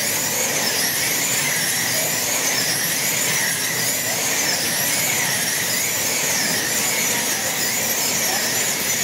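Electric motors of several wing slot cars racing on the track, a high whine that rises and falls about once a second.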